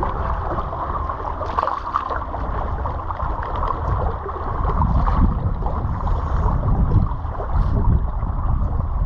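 Wind buffeting the microphone in gusts, over water splashing and lapping around a landing net dipped into the river.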